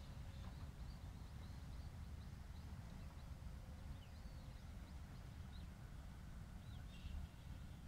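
Faint open-air ambience: a low, uneven wind rumble on the microphone, with small birds chirping now and then.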